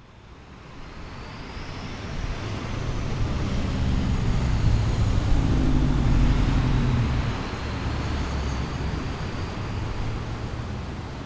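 Low rumbling vehicle noise with a faint hiss on top, fading in from silence, swelling to its loudest about halfway through, then easing slightly and carrying on.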